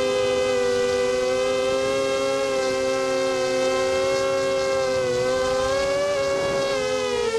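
Brushless motors and propellers of a QAV250 racing quadcopter whining steadily, several close pitches running side by side; from about five seconds in the pitches dip, waver and bend as the throttle changes.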